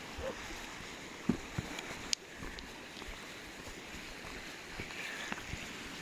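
Small mountain river rushing steadily over stones, with a few sharp clicks and knocks about a second or two in.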